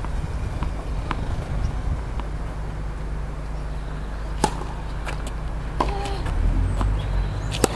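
Tennis ball bounced on a hard court a few times, about one every half second. About four and a half seconds in comes the sharp crack of a serve, followed by racket hits and ball bounces of the rally, the loudest hit near the end. Steady wind rumble on the microphone.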